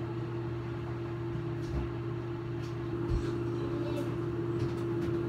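Steady mechanical hum holding one pitch, with a couple of faint knocks in the background about two and three seconds in.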